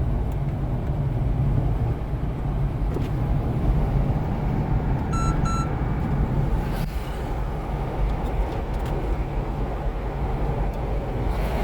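Steady low rumble of a vehicle on the move, with two short electronic beeps about five seconds in.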